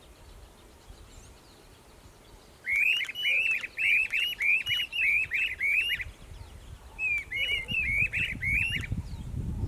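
A pair of streamer-tailed tyrants duetting: loud, arched, repeated notes at about three a second in two runs, the first starting roughly a quarter of the way in, the second shorter and following a brief pause. A low rumble comes up near the end.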